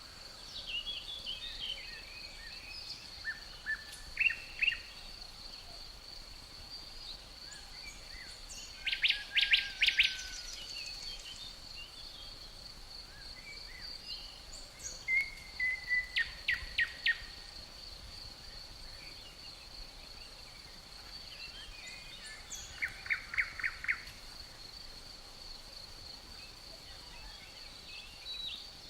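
Birds calling in short bursts of quick repeated chirps, loudest about nine seconds in and again around 15 to 17 and 23 seconds, over a steady high-pitched insect trill.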